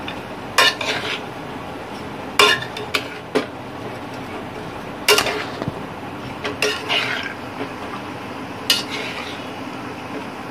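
Metal spoon stirring vegetables and masala in a metal pressure cooker, knocking and scraping against the pot's sides and rim at irregular intervals of a second or two.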